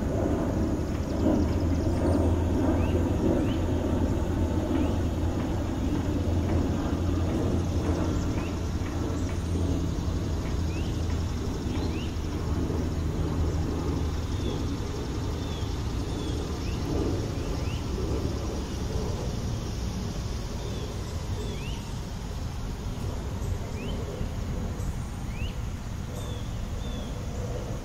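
Outdoor ambience with a steady low engine-like rumble that weakens about halfway through, and short high chirps scattered throughout.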